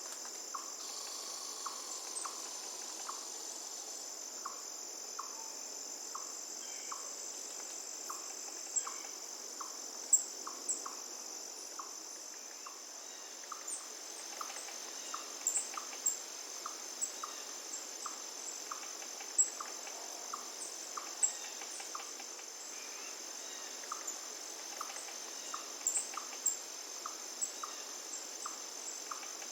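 Steady high insect chorus over an even water hiss from a forest river, with a short call repeating about once a second and scattered sharp high chirps, a few of them louder.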